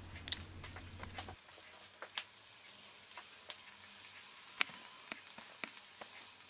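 Spinach-filled börek pastries frying in hot oil in a pan: a faint sizzle with scattered sharp pops and crackles.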